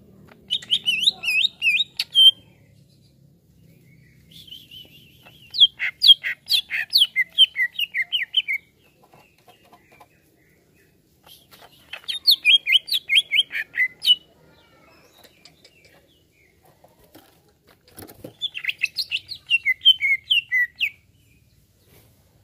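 Greater green leafbird (cucak ijo) singing in four bouts of rapid, quickly repeated whistled notes, with pauses of a few seconds between bouts.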